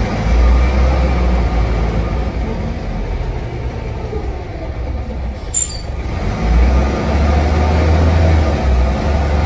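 Preserved single-deck diesel bus heard from inside the saloon while driving: engine rumble and road noise, easing off for a few seconds, then pulling strongly again from about six and a half seconds in. A short sharp click about five and a half seconds in.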